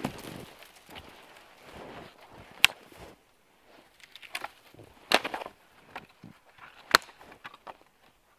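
Dry wood cracking as firewood is broken up for a campfire: three loud sharp cracks about two and a half, five and seven seconds in, with smaller snaps and soft crunching between.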